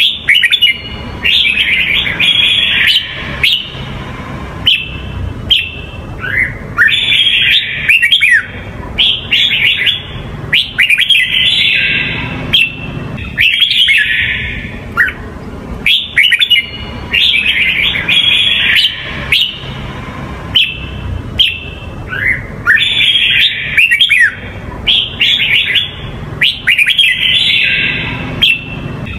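Red-whiskered bulbul of the Huế singing type giving its song: short bursts of quick, bright whistled notes with fast up-and-down sweeps, a phrase every second or two with brief gaps between, over a steady low rumble.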